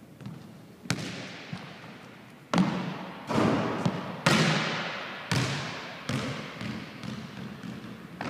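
Basketball bouncing on a hardwood gym floor: sharp hits roughly a second apart, loudest in the middle, each leaving a long echo in the big empty gym.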